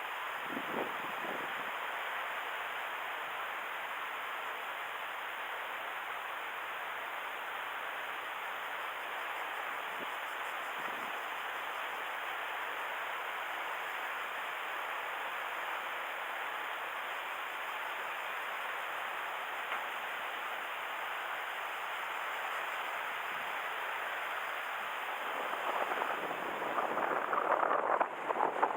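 Steady hiss of wind and water at the shore, with no distinct events. Near the end it turns louder and gustier, with wind buffeting the microphone.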